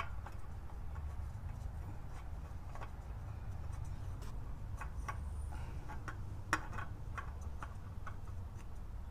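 Irregular light clicks and taps of hands working at the oil filter on a Honda Accord V6, over a steady low rumble, one sharper click about two-thirds of the way in.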